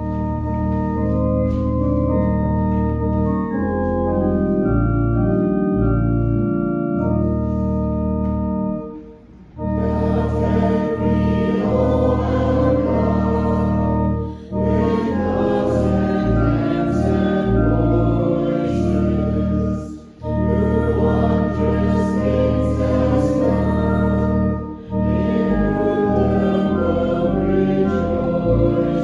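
Church organ playing held chords as a hymn introduction, then the congregation joins in singing the hymn with the organ from about nine seconds in, with short breaks between the sung lines.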